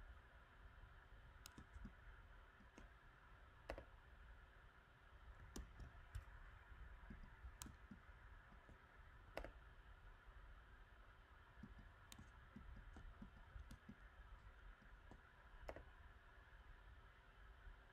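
Faint, irregular clicks of a computer mouse, about one every second or two, over a low steady room hum.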